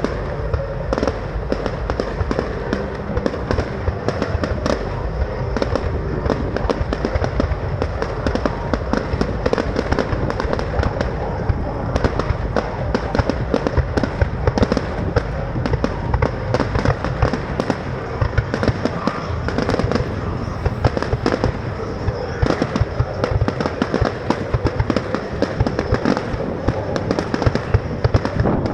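A fireworks display going off in a continuous barrage: dense, rapid bangs and crackles with no break.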